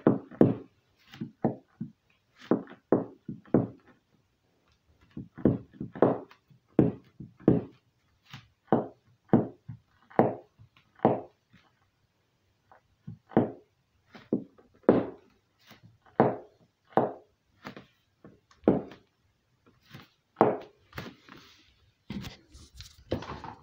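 Bare toe joints cracking over and over: a long run of short pops and knocks, about one or two a second, with a couple of brief pauses. Near the end there is a rustle of the phone's microphone being handled.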